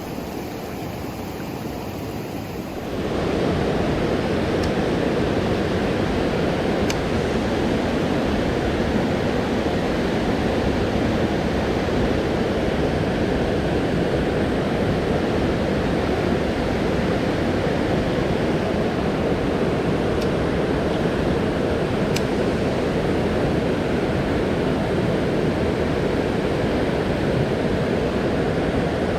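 Steady rushing of a river's flowing water, stepping up in level about three seconds in and then holding even.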